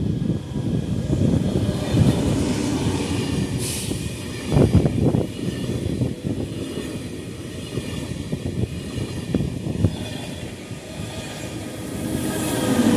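An Alstom Euroduplex double-deck TGV high-speed train passes close by, with a steady rush of wheels on rail and moving air. There are a few louder thuds about five seconds in, and the sound grows louder again near the end.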